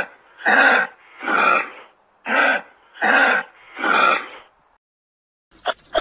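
Kangaroo giving six rasping, breathy huffs, shorter and longer ones in turn, followed by a single sharp click near the end.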